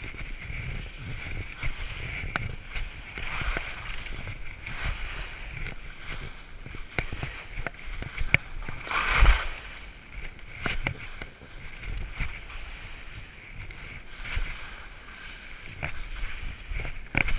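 Skis sliding and scraping over slushy spring snow in a steady rushing hiss with low rumble, scattered small clicks, and a louder thump-and-scrape about nine seconds in.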